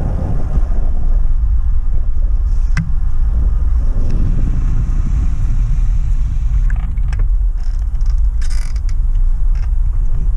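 Wind and road rumble buffeting the microphone of a camera carried on a moving bicycle, a steady low rumble throughout. A sharp click comes about three seconds in, and a few more clicks and a brief rustle come near the end.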